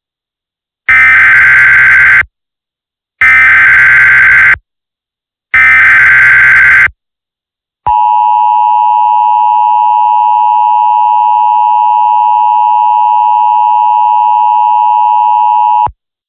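Emergency Alert System header: three short bursts of shrill SAME data tones, then the steady two-tone attention signal held for about eight seconds before cutting off sharply, announcing a severe thunderstorm warning.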